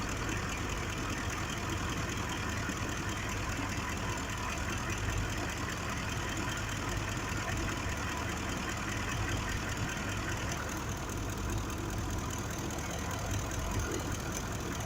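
2005 Ford F-150's 5.4-litre V8 engine idling steadily with a misfire on cylinder 2, which the mechanic puts down to a failing fuel injector.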